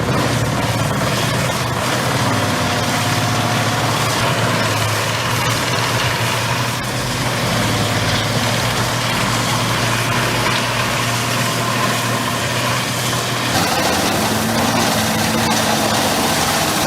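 Heavy machine's engine running steadily with a deep, even hum under a wash of mechanical noise, its note shifting slightly near the end.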